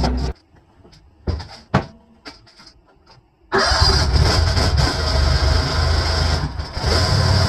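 A tracked skid steer's engine runs briefly and cuts off, then comes a quiet stretch with a few knocks. About three and a half seconds in, the engine of a Stone Wolfpac 3100 ride-on double-drum roller starts abruptly and runs steadily.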